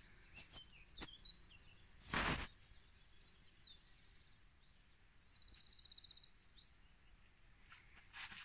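A songbird singing faintly: a run of quick, high, rapidly repeated chirps and trills from about two and a half seconds in to about seven seconds. A brief rustle just after two seconds in is the loudest sound, with a smaller one near the end.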